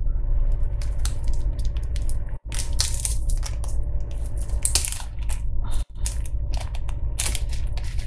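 Small plastic zip-lock bag of seed beads crinkling and rustling in the hands as it is opened and beads are shaken out, in quick irregular crackles.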